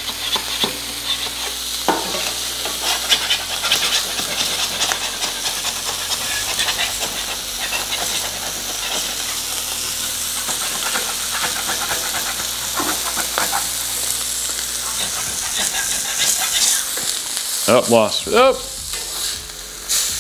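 Smash burger patties sizzling on a hot electric flat-top griddle plate at about 400 degrees. A metal spatula repeatedly scrapes across the steel under a patty to lift its seared crust for the flip.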